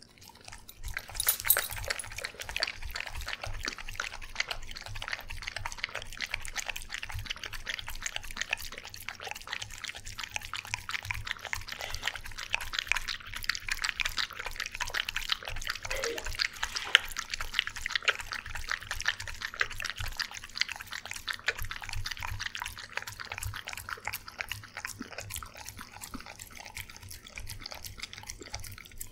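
A corgi-sheltie-beagle mix dog eating wet food from a stainless steel bowl, close to the microphone: a continuous run of rapid wet lapping, smacking and chewing clicks that starts about a second in.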